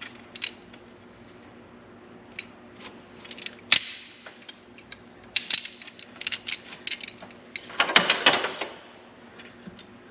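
Pliers crushing and breaking apart the plastic end of a kickdown cable: scattered sharp clicks and snaps of metal jaws and cracking plastic, getting busier after about five seconds, with the loudest burst of crunching snaps about eight seconds in.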